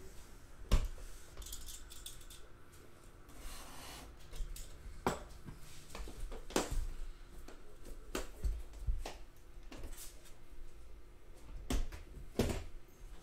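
Gold aluminium briefcase-style card box being handled and turned on a table: scattered sharp clicks and knocks from its metal shell and chrome latches, the loudest about a second in.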